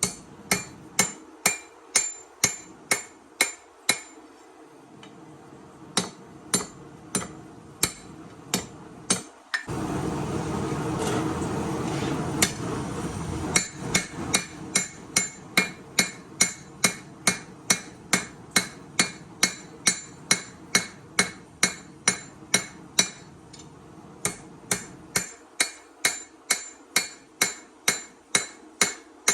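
Hammer blows forging steel on an anvil, ringing strikes coming about two to three a second with a short pause around five seconds in. Around ten seconds in, a loud rushing noise lasts about four seconds before the hammering resumes.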